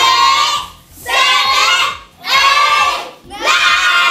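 A group of children chanting together in unison, one loud shout about every second, four times.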